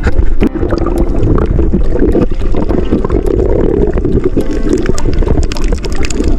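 Water sloshing and splashing with wind buffeting the microphone, a loud steady rush with a deep rumble and scattered small clicks.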